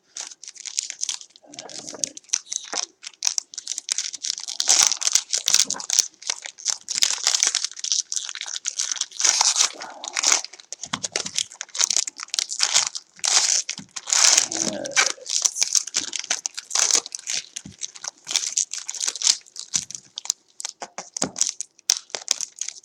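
A trading card pack's wrapper being torn open and crinkled by hand: irregular crackling and rustling with short pauses.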